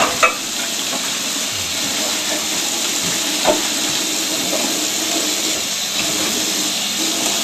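Kitchen tap running steadily into the sink as dishes are rinsed, with one light knock about three and a half seconds in.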